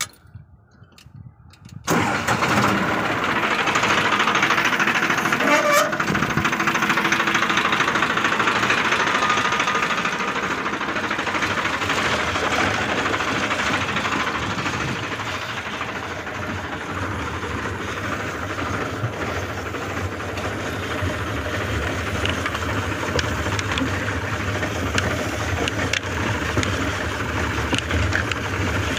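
Tractor diesel engine starting about two seconds in, then running steadily.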